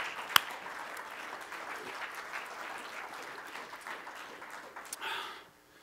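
Church congregation clapping and applauding. Two sharp, close claps come right at the start, and the applause dies away about five seconds in.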